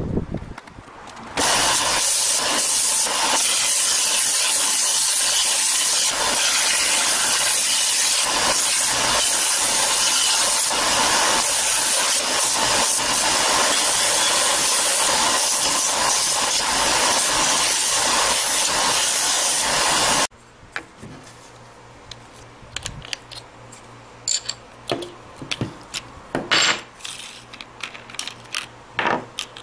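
A hand file rasping fast and without a break on the edge of a wooden piece, cutting off suddenly about two-thirds of the way through. After that come quieter scattered knocks and clatter of tools being handled.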